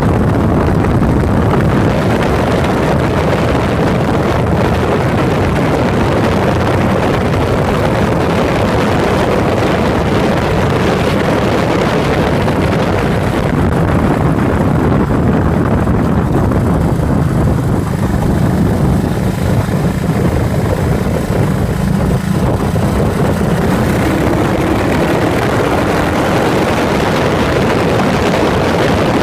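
Yamaha SRX400's air-cooled single-cylinder engine running steadily while the motorcycle is ridden, picked up close by a phone mounted beside the fuel tank. The engine pitch climbs for a few seconds about three quarters of the way through.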